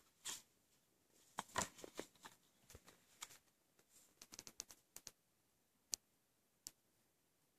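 Faint clicks and rustles of a plastic Blu-ray case and its slipcover being handled and set down on a plastic table covering, a quick run of small taps and scrapes in the first five seconds, then two single clicks.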